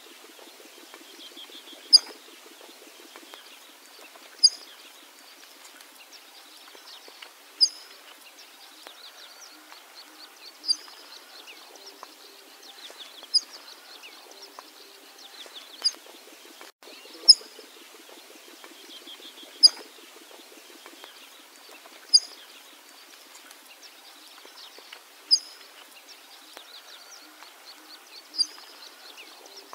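Bengal florican calling: a sharp, short, high chip repeated about every two to three seconds, the "chik-chik-chik" call. Other birds chirp faintly behind it.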